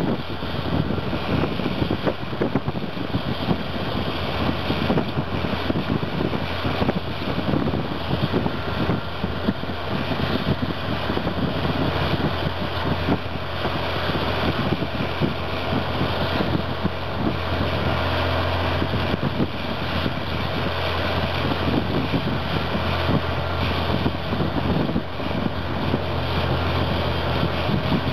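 Caterpillar D11N bulldozer's C27 ACERT V12 diesel engine running steadily under load as the dozer pushes a pile of dirt, with a strong low drone.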